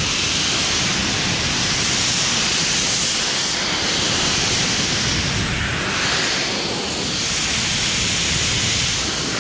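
Adam's Polishes Air Cannon electric car dryer blasting a steady, loud rush of air out of its nozzle, blowing water off a truck's wet hood. The hiss shifts in tone a few times as the jet moves across the paint.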